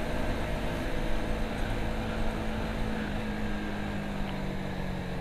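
Honda CBR150R's single-cylinder engine running steadily at cruising speed, with wind and road noise over the helmet microphone.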